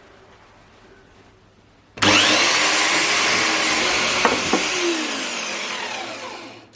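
An electric motor, taken to be the hydraulic press's pump motor, switched on after months unused: it starts suddenly with a rising whine, runs for about three seconds, then winds down with a falling whine and stops.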